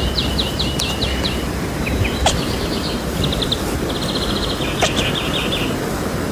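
A bird chirping in short rapid trills, repeated several times, over a steady low background hiss with a few sharp clicks.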